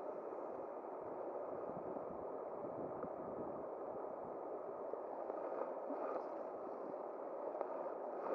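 Steady rush of flowing river water, with a few faint clicks.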